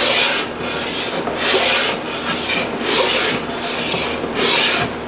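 Steel part being hand-sanded flat on sandpaper stuck to a sheet of glass: four rasping strokes about a second and a half apart, the part turned a little between strokes.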